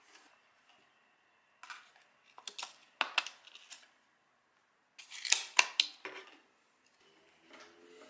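Clear hard-plastic lid and a small submersible water pump being handled and fitted together: clusters of sharp clicks and rattles in three bursts, the loudest clicks about three and five and a half seconds in.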